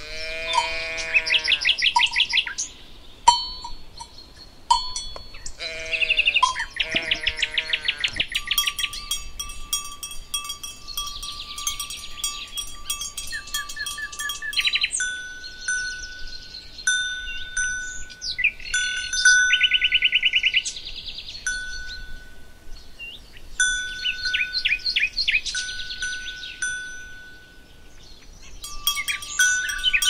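Livestock calling twice, two long drawn-out calls in the first eight seconds. After that, cowbells ring with clear held tones, among chirping birds.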